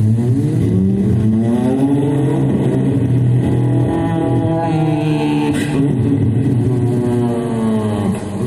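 A man imitating a car engine with his mouth: a continuous revving sound that climbs in pitch over the first couple of seconds, holds, then drops away near the end.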